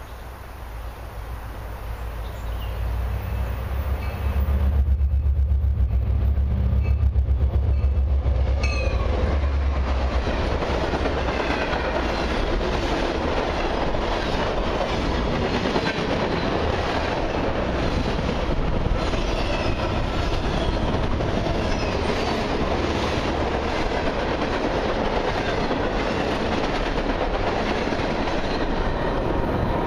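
Freight train led by two Canadian Pacific diesel locomotives passing close by: the locomotives' deep engine rumble builds and peaks about five seconds in. The freight cars then roll past with a steady clickety-clack of wheels over the rail joints and occasional short wheel squeals.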